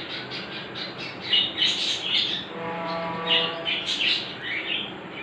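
Birds chirping over and over in the background, with a short steady tone lasting under a second a little past halfway.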